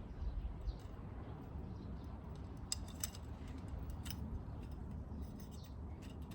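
A few light metallic clicks as the mesh of a folding mesh fire pit is fitted onto its frame, piece by piece, over a steady low rumble.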